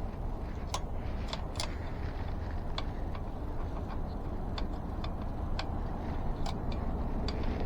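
Irregular small clicks and taps of tools and metal parts being handled on an e-bike's mechanical disc brake caliper, over a steady low background rumble.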